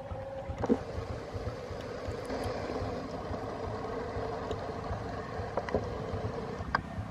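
Diesel locomotive engine running steadily, a low rumble with a steady tone over it and a few light clicks.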